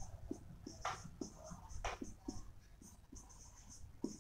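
Marker pen writing on a whiteboard: a quick run of short scratchy strokes with light taps as the letters are formed.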